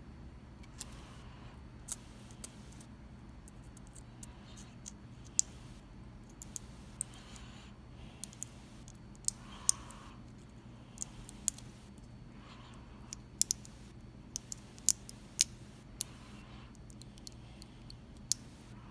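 Irregular sharp metallic clicks and ticks of a thin shim and picking tools working in a Mul-T-Lock MT5 lock cylinder, about twenty over the stretch, the loudest bunched around the middle and later part, over a steady low hum.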